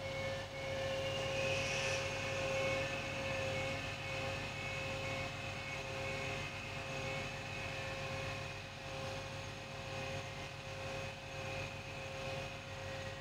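The mechanical bell of an AŽD 71 level-crossing warning system ringing steadily with the barriers down and the red lights flashing, warning of an approaching train. Under it there is a low steady rumble.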